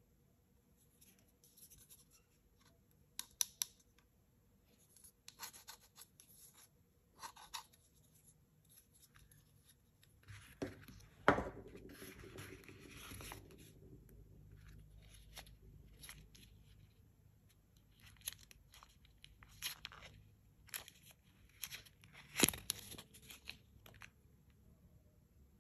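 Unboxing handling noise: light clicks, taps and rustles from a plastic plug charger and a cardboard box tray on a wooden table as the USB cable is lifted out. There are a few seconds of denser rustling a little before the middle, and two sharper knocks, one near the middle and one near the end.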